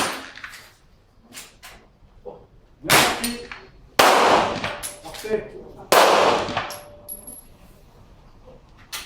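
Glock 17 9 mm pistol shots: the tail of one shot at the very start, then three more shots about three, four and six seconds in, each with a long echoing tail.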